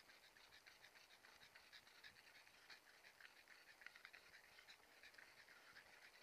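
Near silence: faint, irregular light ticks and rattles, several a second.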